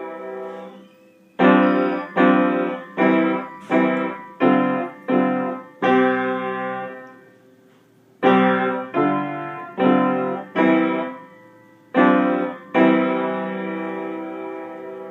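A piano played in chords. A held chord fades out, then comes a run of struck chords about one every 0.7 seconds ending on a longer ringing chord. The run repeats and closes on a final sustained chord that slowly dies away.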